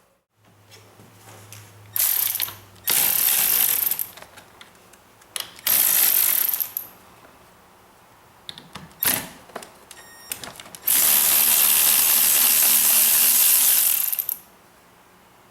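Hand ratchet wrench clicking rapidly in repeated runs as a fastener is spun: several short spells, then one long run of about three and a half seconds near the end.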